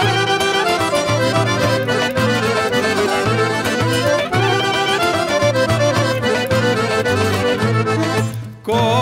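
Instrumental passage of a traditional Aegean Macedonian folk song: a melody over a steady, repeating bass. The music drops out for a moment near the end, then starts again.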